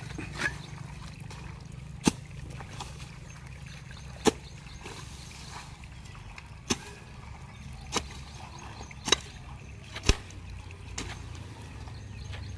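A hand hoe chopping into wet, muddy soil, with about seven sharp strikes spaced one to two seconds apart.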